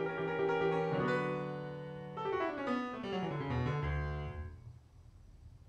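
Background keyboard music, piano-like: a phrase of held and moving notes ending in a descending run that fades out about four and a half seconds in.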